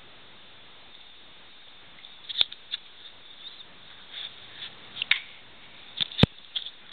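A toddler eating dry cereal close to the microphone: scattered small crunches and clicks from about two seconds in, with two sharp knocks, one near the middle and one near the end.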